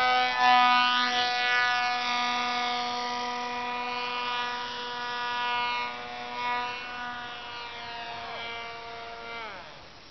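Electric motor and propeller of a foam RC Gripen model jet running at a steady high whine after hand launch, slowly fading as the plane flies away. Near the end the pitch drops as the motor is throttled back.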